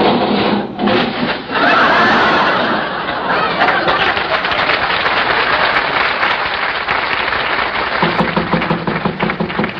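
Studio audience laughing at length with some applause mixed in, swelling about a second and a half in and carrying on steadily.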